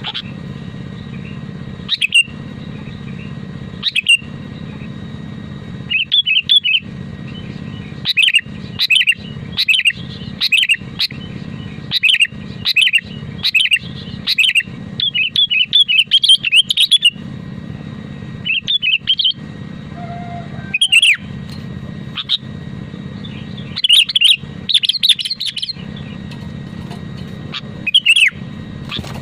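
Sooty-headed bulbul (kutilang) singing in short, sharp chirping phrases in irregular bursts, over a steady low background hum.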